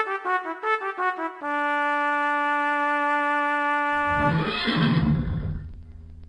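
Brass fanfare plays a run of quick notes, then a long held note; about four seconds in, a horse whinnies and the sound fades away.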